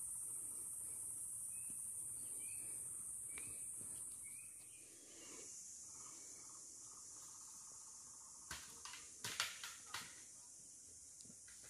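Steady high-pitched drone of forest insects, faint, dropping slightly in pitch about halfway. A few light clicks or knocks come near the end.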